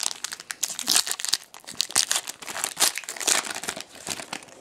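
Shiny foil wrapper of a Bowman Chrome baseball card pack crinkling and tearing as it is ripped open by hand: an irregular run of sharp crackles.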